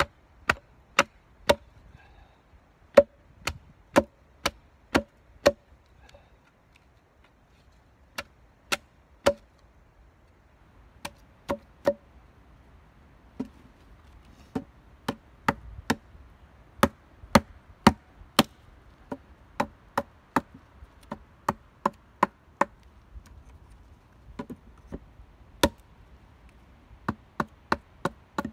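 A hatchet striking wood again and again, sharp knocks at about two a second in runs with short pauses between them.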